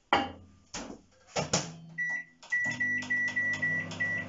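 Microwave oven being loaded and set: three knocks as the bowl goes in and the door shuts, then a string of short high beeps from the keypad as the cooking time is entered. The oven's low running hum starts about two and a half seconds in.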